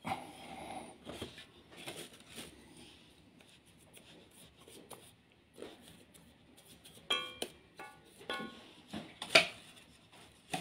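Scattered light metallic clinks and taps of tools and engine parts being handled on a workbench, a few of them ringing briefly, with the sharpest knock about nine seconds in.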